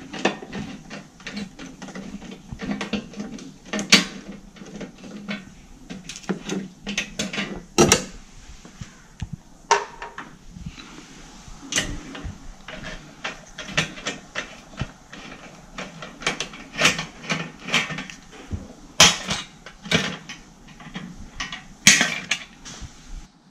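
A hand screwdriver takes screws out of a GE dishwasher's black plastic kick plate, and the panel is handled, making irregular clicks, scrapes and knocks of metal on plastic. A few sharper knocks stand out.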